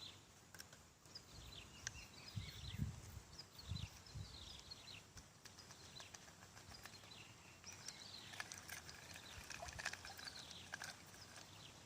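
Faint outdoor ambience of many short, high, falling chirps from small wild animals, with a few soft low thuds about two to four seconds in.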